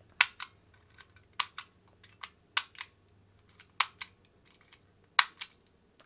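Hard plastic push-pop bubble fidget toy, a whack-a-mole style button game, clicking as its buttons are pressed: a dozen or so sharp clicks at uneven intervals, sounding cheap.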